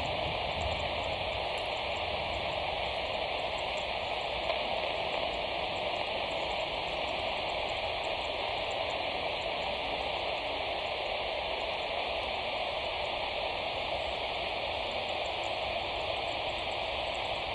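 Steady hiss of radio static from an air traffic control radio feed, with the channel open between transmissions.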